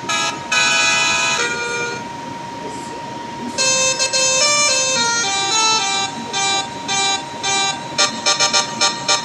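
Telolet bus horn, a set of electric horn trumpets, playing a tune of stepped notes: a short phrase at the start, a pause, then a longer run of notes, ending in a quick string of short toots.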